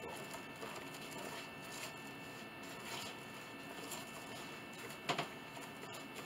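A wide brush spreading hot hide glue across a wooden panel, with soft scratchy, sticky brushing strokes and one sharp tap about five seconds in.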